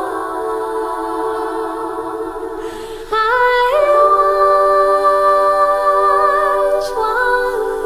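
Background music: long held wordless vocal notes, stepping up to a new, louder chord about three seconds in.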